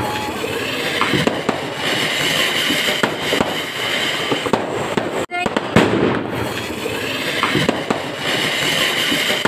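Ground fountain fireworks (flowerpots) hissing steadily as they spray sparks, with scattered crackles and pops. The sound drops out briefly about five seconds in, then the hissing picks up again near the end.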